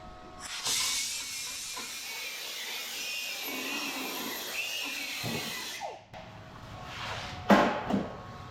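Handheld grinder running for about five seconds, its whine wavering under load as it cleans a spot of steel to bare metal for the welder's ground clamp. It then spins down, and two sharp metal knocks follow near the end.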